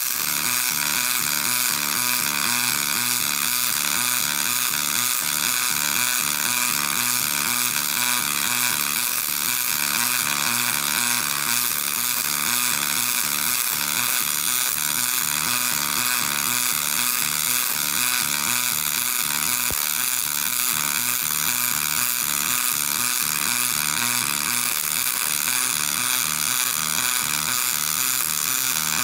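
Double-pulse MIG arc welding aluminum with 5356 wire: a steady, loud buzzing arc with an even, fast throbbing pulse. The higher-pitched buzz marks higher amperage and wire feed speed, the sign of the pulse frequency the synergic machine sets.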